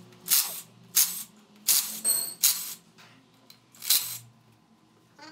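Cordless impact wrench fired in about six short bursts, running bolts into an aluminium transmission case.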